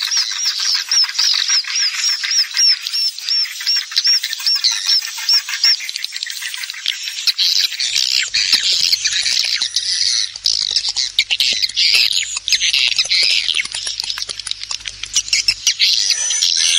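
Swiftlet lure-call recording of swiftlets chirping. It opens with a run of evenly repeated high chirps, about three a second, that after about six seconds gives way to a dense chatter of many birds with quick clicks mixed in.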